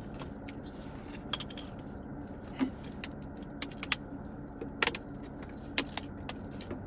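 Eating sounds: scattered sharp clicks and crinkles from chewing and from a plastic water bottle being lifted, drunk from and lowered, over a steady low hum.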